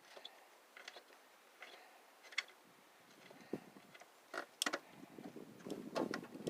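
Faint, scattered small metallic clicks and taps from nuts being threaded onto bolts by hand and the parts being handled, about one click a second with light rustling near the end.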